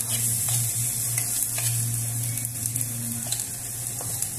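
Chopped garlic and onion sizzling gently in oil in an aluminium pot as they are sautéed until just golden. A metal spoon stirring them clicks and scrapes against the pan a few times, over a steady low hum.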